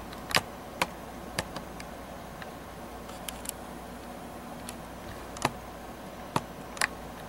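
Scattered light clicks and taps from a handheld video camera being handled and zoomed, about eight at uneven spacing over a steady hiss.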